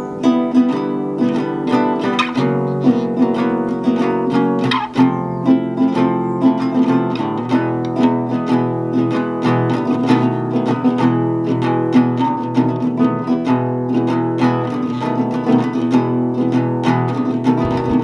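Instrumental background music played on a plucked string instrument, like an acoustic guitar, with notes picked in a quick, steady run.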